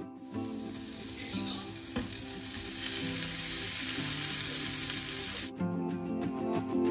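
Potato pieces frying with onions in hot oil in a frying pan, a loud sizzle as they cook and are stirred. The sizzle starts just after the opening and cuts off suddenly about five and a half seconds in, leaving soft background music that runs underneath throughout.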